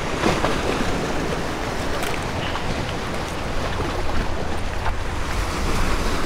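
Surf washing against granite jetty rocks, a steady rush of waves with wind buffeting the microphone. A couple of faint clicks sound early on.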